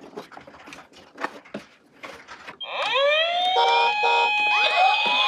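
Light clicks and clatter for the first couple of seconds, then, about halfway through, the electronic sirens of several toy ambulance minicars start at once: overlapping wails sliding up and down in pitch, with a pulsing beep among them.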